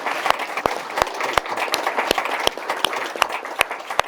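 Audience applauding, many hands clapping, the applause thinning out near the end.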